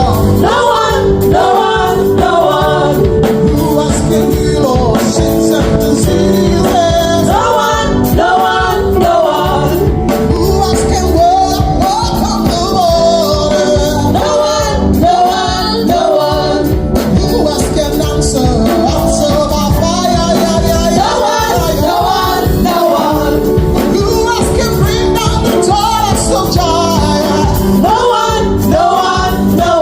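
Church worship team singing a gospel-style praise song with a live band, sung melody over sustained chords and a steady drum beat.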